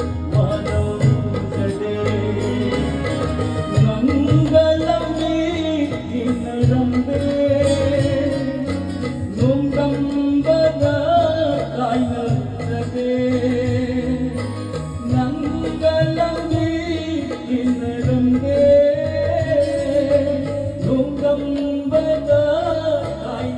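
Music: a voice sings a wavering melody over a steady instrumental accompaniment.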